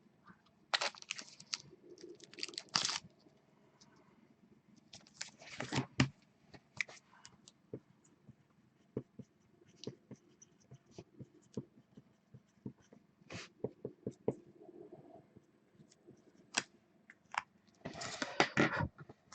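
Intermittent rustling and light clicks from handling trading cards and plastic packaging, with short scrapes and taps scattered through.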